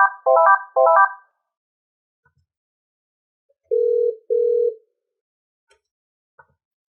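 Polycom VVX 400 desk phone playing sample ringtones through its speaker. First comes an electronic ring of three quick bursts of stepped notes in the first second. About three seconds later come two short, steady low beeps, with faint clicks in between.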